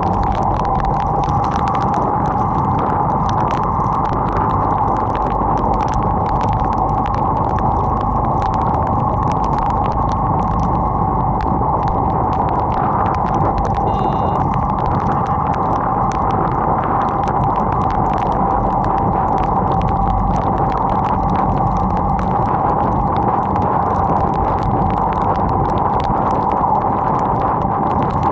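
A motorcycle riding through heavy rain: a loud, steady rush of wind and rain noise over the running bike, with many sharp ticks of raindrops striking.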